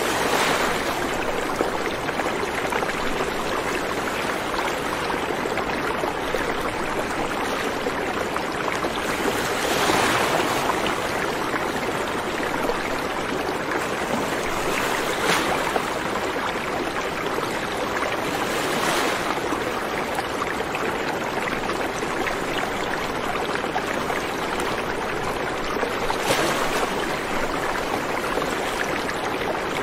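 Steady rush of running water, swelling briefly louder now and then.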